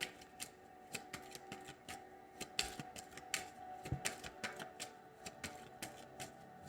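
A Lenormand card deck being shuffled by hand: light, irregular card clicks and flicks, several a second, with a faint steady tone underneath.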